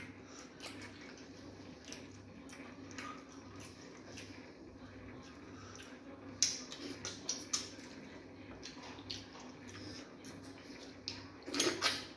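Wet eating sounds of fufu and banga soup eaten by hand: fingers squishing in the soup, slurping, finger-licking and lip smacks, a run of short wet clicks. The loudest slurps come about six seconds in and just before the end.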